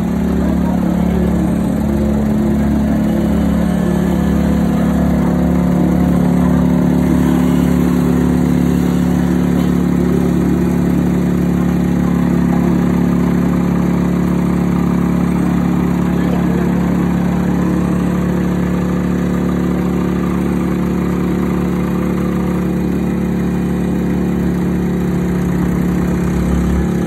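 Engine idling steadily, a loud even low hum that holds the same pitch throughout.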